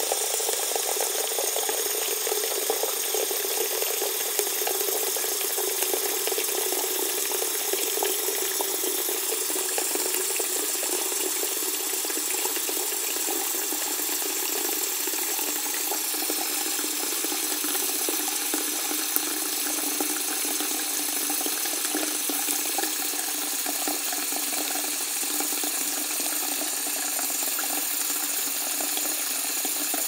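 Bathroom sink filling from a running tap: a steady rush of water pouring into the basin.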